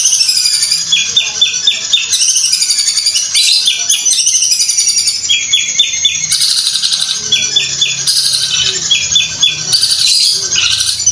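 A Madura long-tailed shrike (cendet) singing loudly and without pause. A high, varied warbling chatter is broken every second or two by quick runs of four or five clipped notes, the rattling style that bird-keepers liken to a sewing machine.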